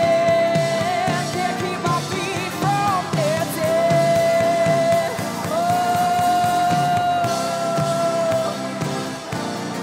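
Female lead vocalist singing a contemporary worship song over live band accompaniment, holding long sustained notes, the longest from about halfway through to near the end.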